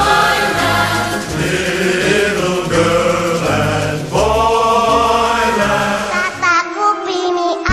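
Background music with choir-like singing over a steady beat; about six and a half seconds in it switches to a different song.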